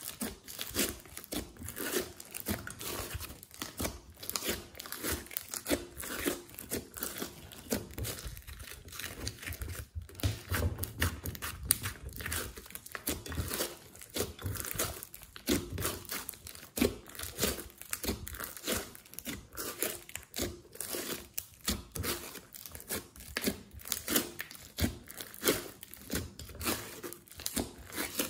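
Hands squeezing and kneading a large mass of glossy slime mixed with clay: a dense, continuous run of wet, sticky crackles and pops, several a second.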